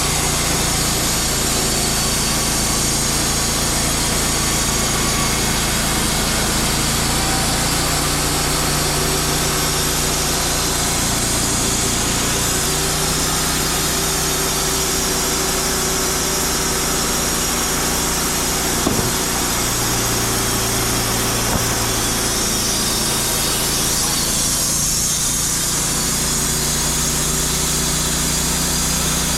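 Portable bandsaw sawmill running steadily, its engine driving the blade through a log, with small shifts in engine pitch as the load changes.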